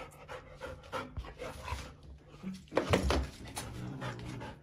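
Golden retriever panting in short, irregular breaths, loudest about three seconds in.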